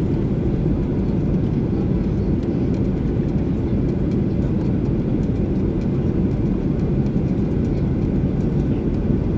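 Steady in-flight cabin noise of a Boeing 737-800 heard from a window seat over the wing: a constant low rush of airflow and CFM56-7B engine noise.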